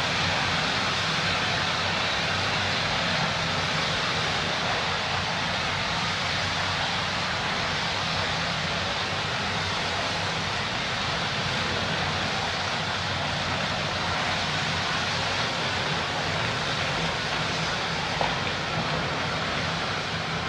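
Steady hissing roar of a balcony fire fed by gas leaking from a gas grill's tank.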